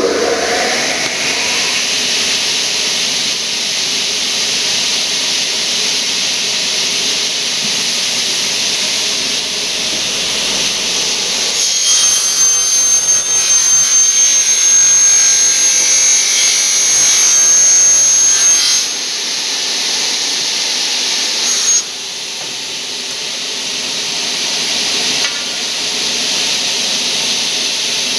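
Mepal Bora 550 aluminium-cutting circular saw: the blade spins up with a rising whine, then runs steadily. From about twelve seconds in, for about seven seconds, it cuts through an aluminium profile, louder and with a high-pitched ring, then runs on after the cut.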